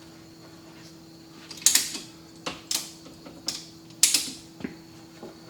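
Irregular sharp clicks and knocks, about nine of them, starting about one and a half seconds in, from hand work on a glued lumber frame being pulled into square. A faint steady hum runs underneath.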